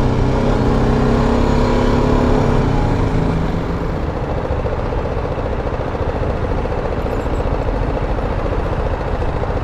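Motorcycle engine running at low speed, its tone clear for the first few seconds and then sinking into a steady low rumble with road and wind noise.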